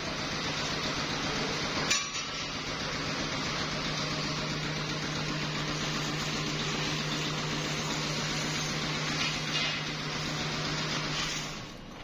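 Workshop machine running steadily with a low hum over a hiss of noise, a sharp metallic knock about two seconds in; the machine stops shortly before the end.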